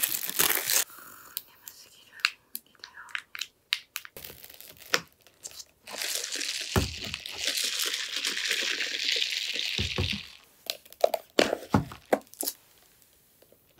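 Paper food wrapper crinkling and rustling as it is handled, loudest in the first second and again in a longer rustle midway, with scattered crunching clicks and a couple of soft thumps on the table.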